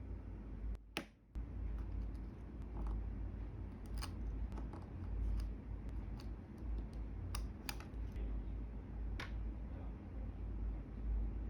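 Light, irregular clicks and taps of small craft tools and materials being handled on a work surface while making a miniature cutting board and knife, over a low steady hum.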